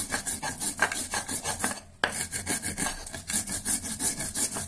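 Stone muller (batta) rubbing back and forth in quick strokes over a stone grinding slab (sil), rasping as whole cumin seeds and green chillies are ground into a paste. The strokes break off briefly just before two seconds in, then carry on.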